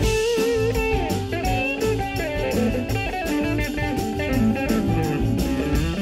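Live blues band playing an instrumental break: a lead electric guitar playing bent and wavering notes over bass and a steady drum beat.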